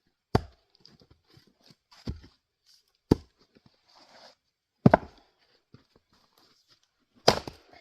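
Gränsfors Bruk axe chopping into firewood on a chopping block: five sharp, loud chops, irregularly spaced one to two seconds apart.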